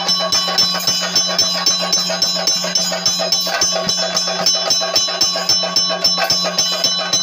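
Theyyam ritual music: a fast, steady drumbeat over continuous metallic ringing, typical of chenda drums and ilathalam cymbals, with a held low drone underneath.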